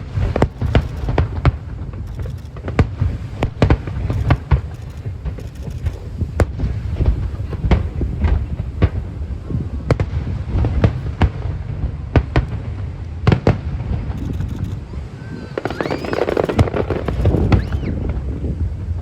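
Aerial fireworks display: a dense run of sharp cracks and booms over a continuous low rumble.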